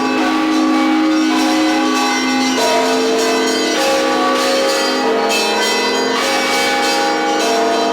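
Russian Orthodox church bells ringing: several bells of different pitches struck again and again, their tones overlapping and ringing on without a break.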